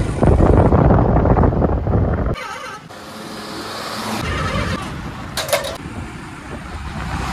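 Road noise from a moving vehicle, with heavy wind buffeting on the microphone for the first two seconds, then a sudden cut to quieter engine and traffic noise. A brief pitched tone sounds about five and a half seconds in.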